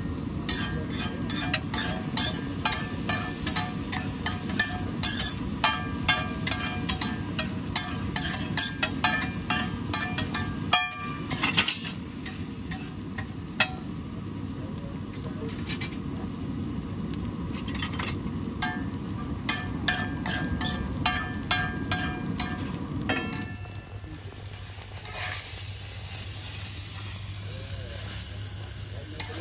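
A metal spatula clanking and scraping on a large flat griddle as eggs fry in oil, with many sharp, briefly ringing clinks over a steady sizzle. Near the end the clanking stops and a steady high sizzling hiss remains.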